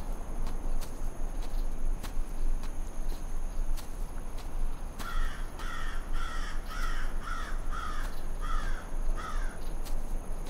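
A crow cawing, a quick run of about nine caws at roughly two a second starting about halfway through, over a steady low rumble and faint regular clicks.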